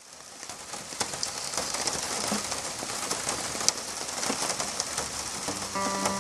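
A crackling hiss full of small clicks, like rain or static, fades in. Music with steady notes begins near the end.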